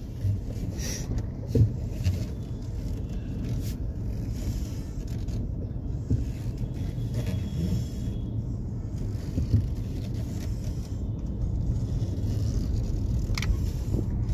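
Steady low rumble of a car's engine and road noise, heard from inside the cabin while driving, with a few faint clicks and knocks.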